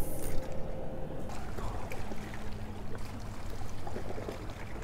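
Water trickling and lapping against a small boat, with a faint steady hum that drops in pitch about two seconds in.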